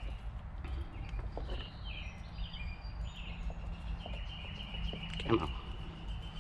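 Faint outdoor background: a steady low rumble and a steady high hum, with short bird chirps about two to three seconds in. Small clicks come from multimeter test leads being worked into a sensor connector, and there is one brief vocal sound near the end.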